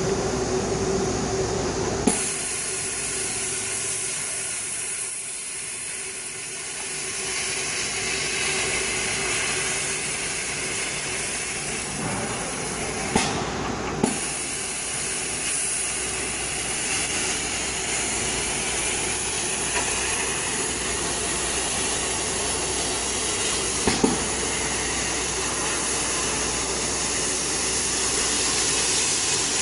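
Laser cutting machine running while it cuts a plywood die board: a steady hissing rush of air from the machine, with a few brief sharp clicks.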